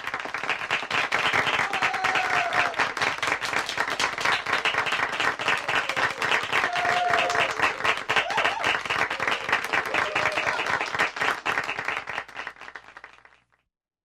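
A small group of people applauding with fast, dense clapping, and a few brief cheering calls over it. The applause tapers off near the end.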